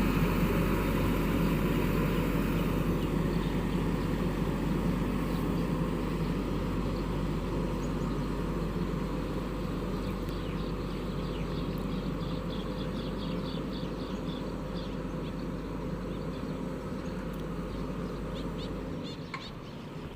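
Diesel engine of a heavy road-construction machine running steadily, its sound slowly fading and then dropping away near the end. Birds chirp faintly in the second half.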